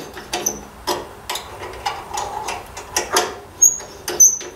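Hand tools working in a tractor's radiator mounting bolt hole: a wrench turning a thread-chasing tap, giving about a dozen irregular metallic clicks and knocks.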